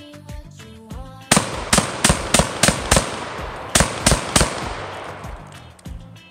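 Rock Island Armory VR80 semi-automatic 12-gauge shotgun fired rapidly. Six shots come about three a second, then after a short pause three more. Background music plays underneath.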